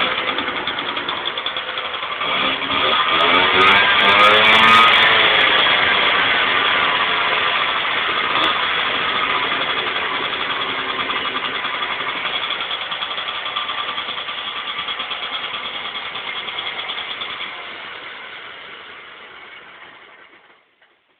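Vespa 50 R's 49 cc two-stroke single-cylinder engine running again after 23 years laid up: revved up and back down a few seconds in, then running steadily before the sound dies away near the end.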